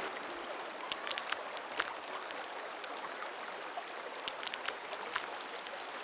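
The Estéron river flowing: a steady rush of running water with scattered small clicks.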